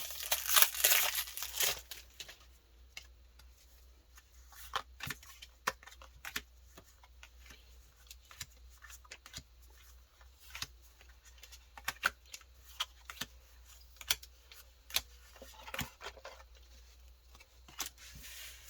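Foil Pokémon booster pack wrapper crinkling and tearing for about two seconds, then scattered light clicks and snaps of trading cards being handled and flipped through.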